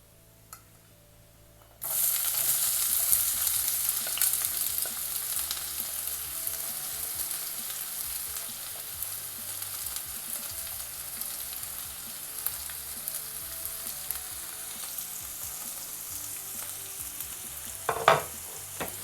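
Chopped onions dropped into hot oil in a kadai with whole spices: a loud sizzle starts suddenly about two seconds in and settles into steady frying. A brief louder noise comes near the end.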